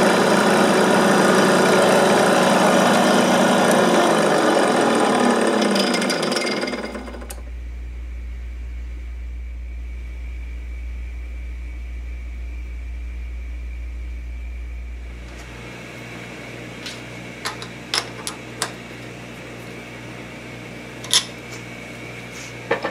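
Small bench grinder grinding the tip of a high-speed steel lathe cutter, a loud, dense grinding noise whose pitch falls over about two seconds before it stops about six and a half seconds in. After that a low steady hum, then a few light clicks near the end.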